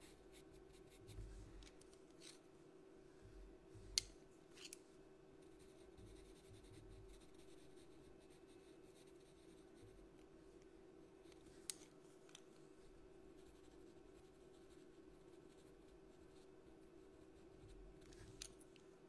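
Near silence: faint pastel pencil strokes scratching on paper, with a few sharp clicks, the loudest about four seconds in, over a steady faint hum.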